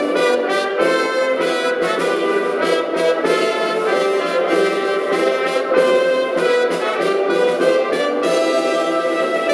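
Brass music with trumpets and trombones playing a tune, changing notes often at a steady, loud level.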